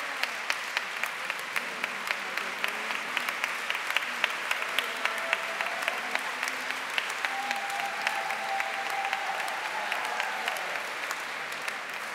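Large audience applauding steadily, a dense, continuous patter of many hands clapping.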